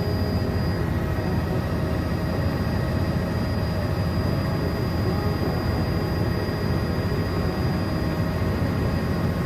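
Helicopter engine and rotor noise heard from inside the cabin, a steady low drone throughout.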